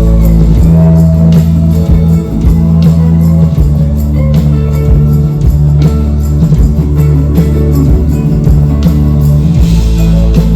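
Rock band playing an instrumental passage, with guitar over steady bass and regular drum hits.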